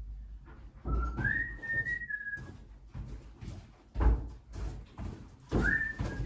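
A person whistling two short phrases of a few held notes each, with dull thuds of things being handled in between.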